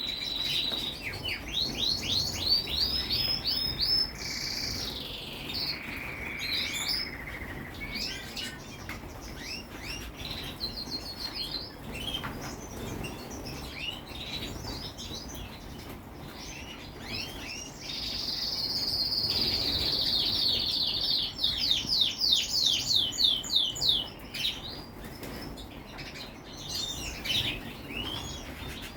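Small songbirds chirping and singing. There are fast trills of repeated high notes near the start, scattered chirps between, and a longer trill about two-thirds of the way through.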